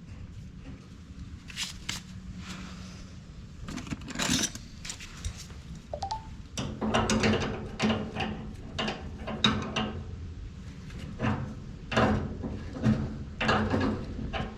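Metal pipe fittings and hand tools clinking and knocking while black-iron gas pipe fittings are handled and assembled. The knocks are sparse at first and come thick and irregular from about six and a half seconds in.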